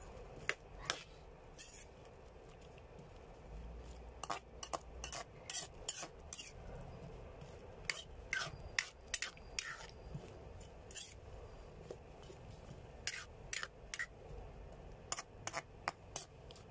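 Metal ladle clinking and scraping against a metal wok as chunks of squash are stirred, many short sharp clinks at irregular intervals.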